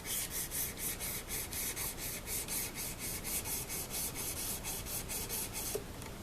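Fine-grit sandpaper rubbed back and forth over mandolin frets at a steady four or so strokes a second, stopping shortly before the end. It is the last polishing pass of a fret leveling and crowning job, taking out the scratches left by coarser grits.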